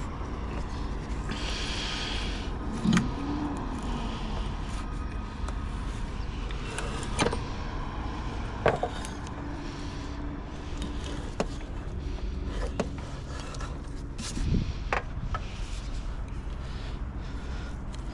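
Scattered sharp clicks and knocks, a handful of them louder, over a steady low rumble.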